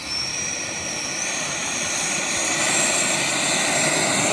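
Whine of a 3D-printed Fouga Magister RC model jet's ducted fan at high power, a high steady tone that steps up in pitch about a second in, over a rushing noise that grows louder as the jet approaches.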